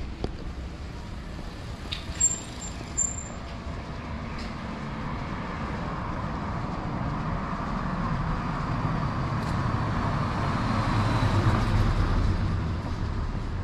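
A car driving past on the street: its engine and tyre noise swells to a peak about eleven or twelve seconds in, then eases off. Two short, sharp high-pitched chirps come near the start, about two and three seconds in.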